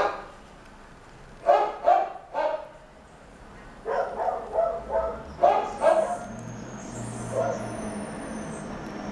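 A dog barking in short yips: three close together, then a quicker run of about six a couple of seconds later.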